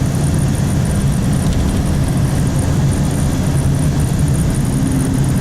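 Steady engine and road noise inside a truck's cab while driving on a snow-covered road, a low, even hum.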